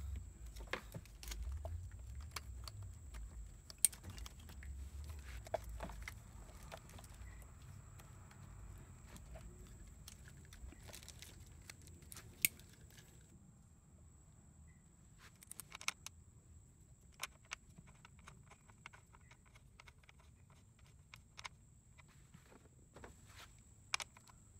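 Irregular light clicks and taps of hand tools and parts being handled, over a faint steady high-pitched whine, with a low rumble in the first few seconds.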